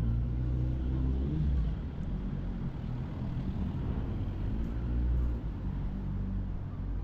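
Street traffic: a motor vehicle's low engine hum, swelling in the first second and a half and again around four to five seconds in.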